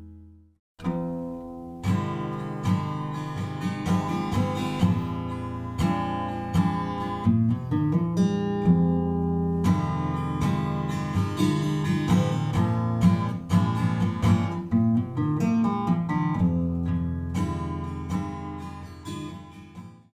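Acoustic guitar music, a run of plucked notes that starts about a second in after a brief silence and fades out near the end.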